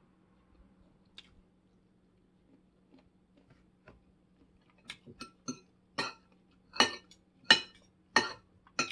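Cutlery clinking against a dish: a series of about eight sharp, ringing clinks, starting about five seconds in and growing louder, each roughly two-thirds of a second apart.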